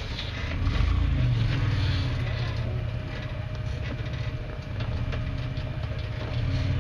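Off-road vehicle engine running with a low rumble, loudest about a second in, with scattered clicks and rattles over it.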